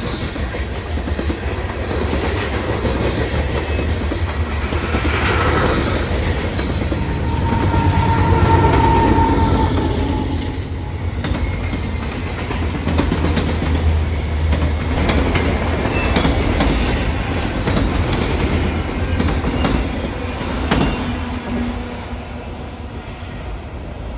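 A train passing on the rails: a steady deep rumble with wheels clicking over the rail joints. A brief high-pitched wheel squeal comes about eight seconds in, and the sound eases off near the end.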